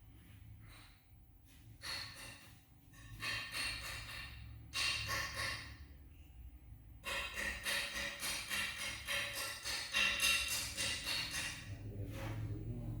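Jewellery plasma-discharge welder firing in bursts of rapid crackling pulses over a low electrical hum. There are three bursts: a short one about two seconds in, another from about three to six seconds, and a longer one from about seven to twelve seconds.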